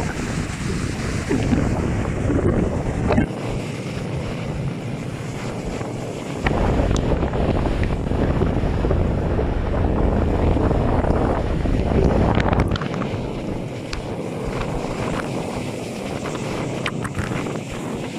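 Strong wind buffeting the microphone in heavy gusts, over the wash of waves on a rough sea. The gusts come in the first few seconds and again through the middle stretch.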